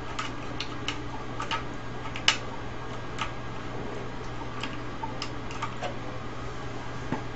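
Scattered light clicks and taps of a hand tool and loose CRT TV parts being handled, with one sharper click a little over two seconds in, over a low steady hum.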